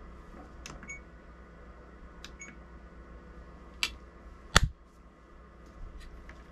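Small clicks and knocks of an oscilloscope probe and its tip being handled on a workbench: a few light clicks, some with a brief ringing tone, and one louder knock about halfway through, over a faint steady low hum.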